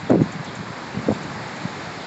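Footsteps on a forest path: a few soft thuds, the first the loudest, over a steady hiss of wind on the microphone.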